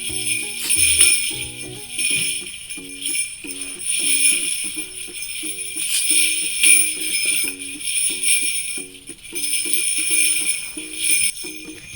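Small jingle bells on stretchy bracelets jingling in repeated shakes, over light background music with a repeating melody.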